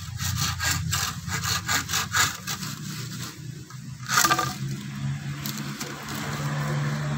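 Curved pruning saw cutting through a green bamboo culm in quick back-and-forth strokes, about four or five a second, for the first two seconds or so. A single sharp crack about four seconds in, with a steady low hum underneath.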